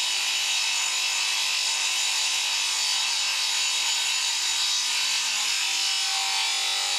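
Table saw ripping a chipboard panel, a steady loud whine of the motor and blade mixed with the rasping noise of the cut.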